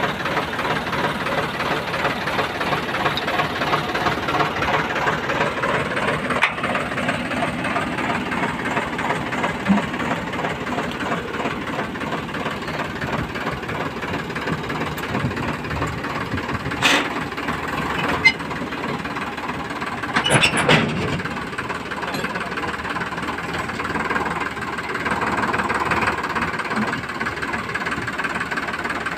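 Sonalika DI 740 III tractor's diesel engine idling steadily, with a few short metallic clanks a little past the middle.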